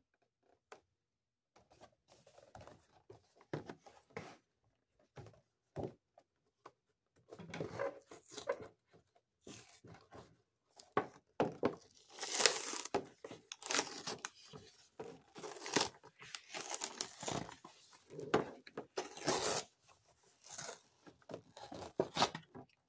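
Cardboard toy box and its paper packing being handled and pulled open by hand: irregular tearing, rustling and crinkling of paper and card, getting busier and louder from about halfway through.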